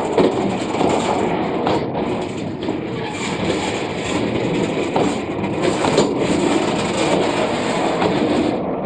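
Fully loaded freight wagons rolling past close by on meter-gauge track: a steady rumble of steel wheels on rail, with irregular sharp clacks from the wheels.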